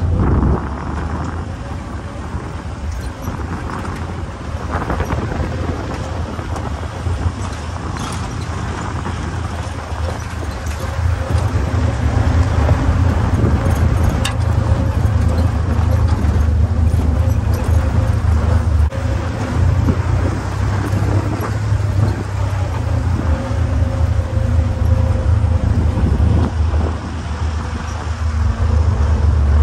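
1944 Willys Jeep driving along a dirt trail: its four-cylinder flathead engine runs steadily with a low drone, louder from about twelve seconds in.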